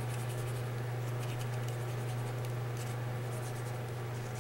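Soft, irregular strokes of a Wink of Stella glitter brush pen on patterned paper, over a steady low hum.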